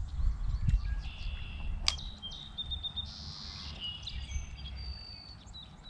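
Small birds call and trill over a steady low rumble, with one sharp click about two seconds in.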